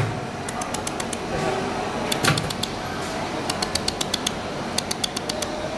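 Laser welder firing, heard as irregular runs of sharp ticks, several a second, with a louder burst about two seconds in, over steady machine and shop noise.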